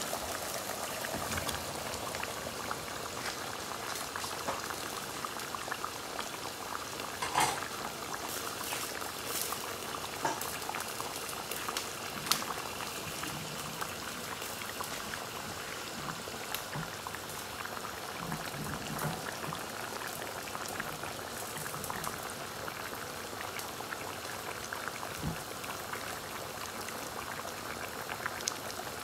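Chicken and bottle gourd curry simmering in a nonstick pan: a steady bubbling, sizzling hiss with fine crackles, broken by a few sharp clicks and knocks about seven and twelve seconds in.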